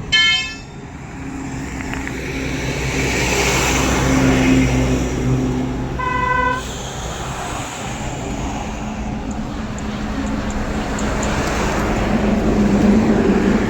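Road traffic going by steadily, with a short vehicle horn blast right at the start and another about six seconds in.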